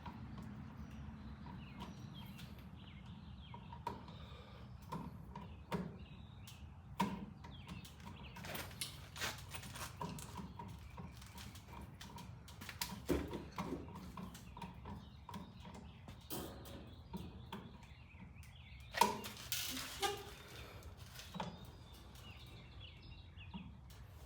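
Scattered light clicks and knocks of an electrical outlet, its wires and tools being handled and pushed into place, over a low steady hum. A louder cluster of knocks comes about two-thirds of the way through.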